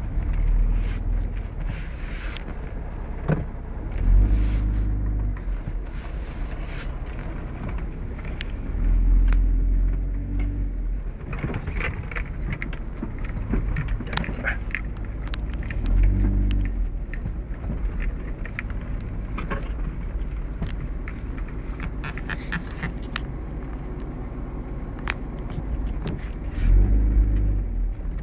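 A 4x4's engine labouring over rough off-road ground, the revs surging in four short bursts. Frequent knocks and rattles run over it.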